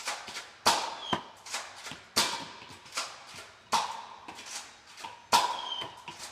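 Nerf blasters firing repeatedly: sharp shots at an uneven rate of roughly one a second, each with a short ringing tail.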